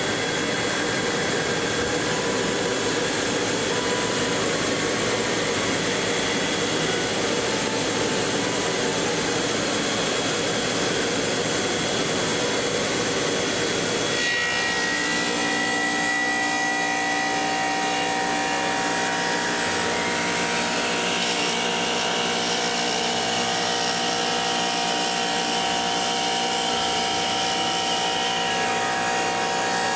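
Dry-process stone V-groover running, its cutter machining stone with a steady rushing noise. About halfway through, the sound changes to several steady whining tones, one slowly falling and then another rising.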